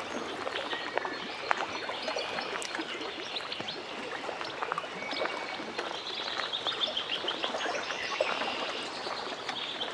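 Lake water lapping at the shore with many small splashes and drips, and birds chirping; a quick run of rapid chirps comes about six seconds in.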